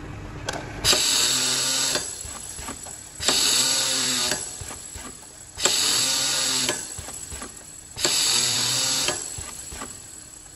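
Powder auger filling machine cycling: four bursts about a second long, roughly every two and a half seconds, each a motor whine over a hiss as a dose is filled, with a quieter steady running sound between them.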